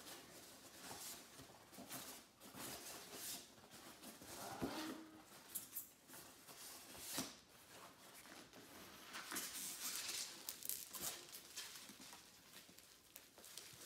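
Hands rummaging inside a cardboard shipping box: irregular rustling and crinkling of packing material against the cardboard as an item is dug out.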